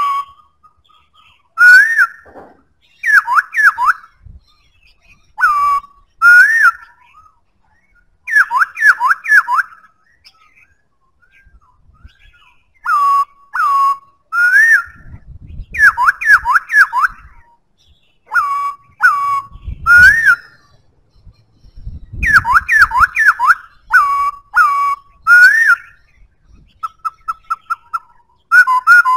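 Black-throated laughingthrush singing: loud, clear whistled phrases of two to five gliding notes, repeated with short pauses, ending in a quick run of short repeated notes.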